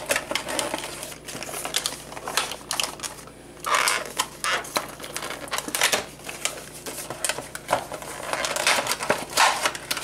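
Plastic blister pack being worked open by hand: a run of irregular clicks, crackles and crinkles, with longer rustling bursts about four seconds in and again near the end.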